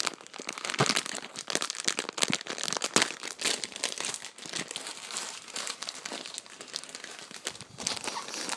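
Clear plastic wrapper of a packaged sandwich crinkling as it is handled and pulled open by hand, with many sharp crackles one after another.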